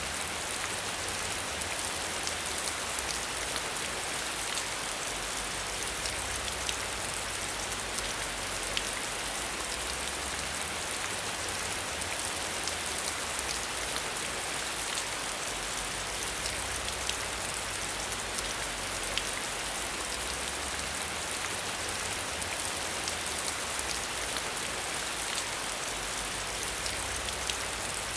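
Steady rain, with many small drops ticking against a window.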